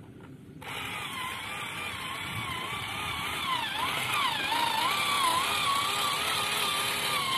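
Small electric drive motor of a miniature tracked combine harvester whining as the model crawls up a ramp. The whine starts about half a second in and wavers up and down in pitch as the load on the tracks changes.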